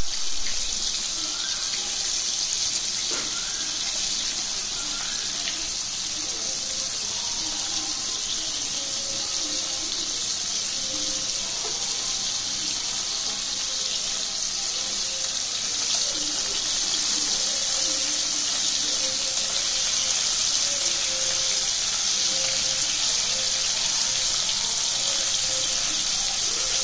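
Prawns shallow-frying in hot oil in a pan: a steady, high sizzling hiss.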